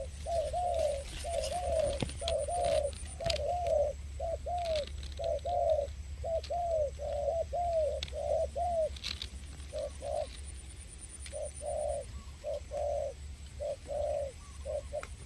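Dove cooing: a fast series of short, arched coos, about two a second. After about nine seconds they thin out into scattered short groups.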